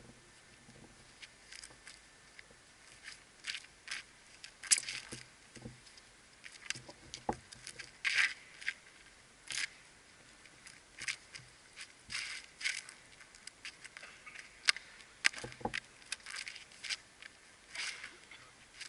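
Cossack shashka (sabre) blade cutting the air as it is spun, a string of short swishes that come irregularly, about one or two a second, with a few sharper clicks among them.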